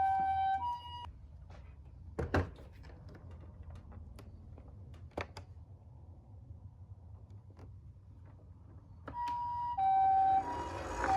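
Toy ambulance's electronic two-tone siren alternating high and low, Japanese-ambulance style, stopping about a second in and starting again near the end. Two clicks fall in the quiet between.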